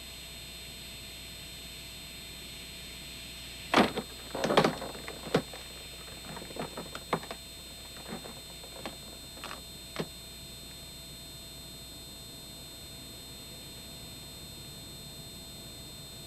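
A burst of sharp knocks and clatters over a steady tape hiss. The loudest come about four seconds in, then single knocks thin out until about ten seconds in.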